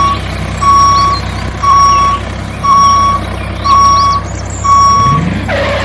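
Vehicle reversing alarm beeping on one steady pitch, six beeps at about one per second, each about half a second long, over a steady engine hum.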